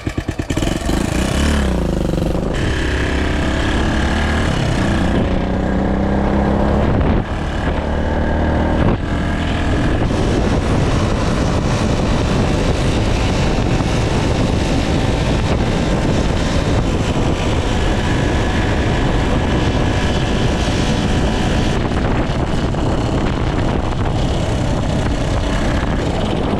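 Suzuki DR200's single-cylinder four-stroke engine, freshly rebuilt top end being broken in hard, accelerating through the gears with its pitch climbing in each gear and several upshifts in the first nine seconds. It then runs steadily at highway speed under heavy wind rush.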